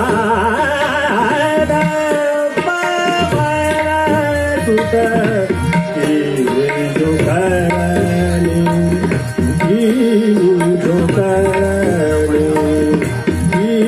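Hindustani classical vocal in Raag Hansadhwani: a man sings a sliding, ornamented melody, accompanied by tabla strokes and a harmonium holding and following the notes.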